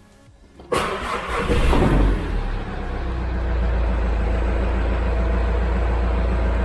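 VW T5 bus engine cranking and catching, briefly rising in speed, then settling into a steady idle. It runs without the noise that the faulty dual-mass flywheel had made.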